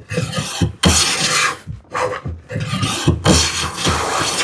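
Hand plane taking repeated strokes across a rough-sawn poplar board face, each stroke a rasping swish of the blade cutting shavings. There are four or five strokes, each under a second long with short pauses between.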